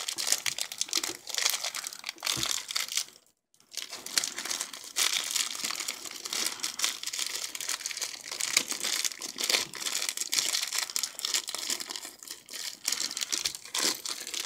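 Small clear plastic parts bag crinkling and crackling as fingers squeeze and twist it to work a building-brick piece out. A brief silent break comes about three seconds in.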